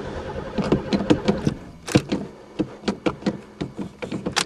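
A string of irregular sharp clicks and knocks, like parts and fittings being handled on a car that will not start. Under them, a steady hum dies away in the first second and a half.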